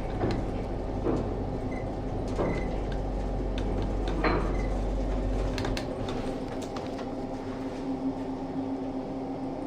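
Passenger lift running, with a steady low hum that cuts off a little past halfway through. Clicks, knocks and a few short high tones are heard over it, and then the sliding doors work.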